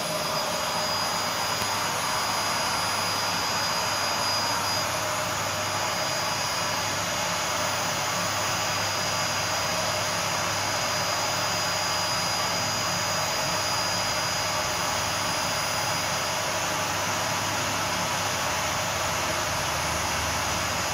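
Motorized dog grooming brush (Auto Dog Brush) running with suction through its attached vacuum hose as it is worked through a Rough Collie's long coat. It makes a steady rushing hum with a thin high whine and never cuts out.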